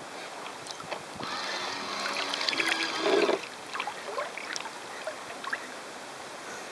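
Water rushing and gurgling along the hull of a radio-controlled model sailboat heeled under sail. From about a second in until past three seconds there is a louder stretch that carries a steady whine.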